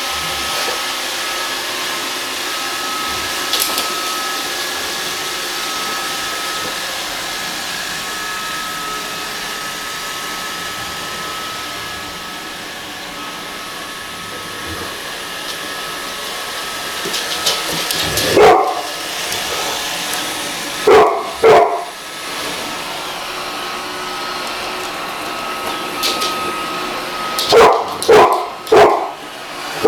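Roomba robot vacuum running with a steady hiss and a thin whine, while a dog barks over it: one bark past the halfway point, two a couple of seconds later, then four in quick succession near the end.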